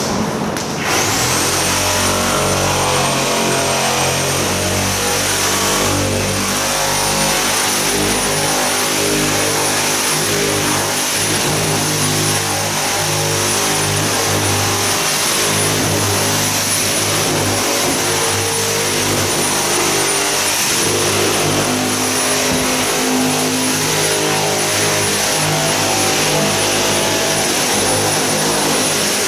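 A motor-driven tool spins up about a second in, then runs steadily with a high whine over a lower hum, and starts to wind down at the very end.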